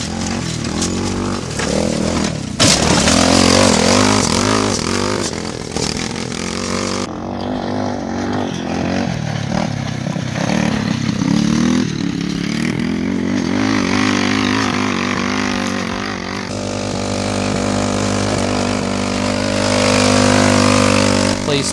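Small single-cylinder engine of an off-road go-kart buggy being driven hard over dirt, its pitch rising and falling with the throttle, then holding a steadier high rev near the end.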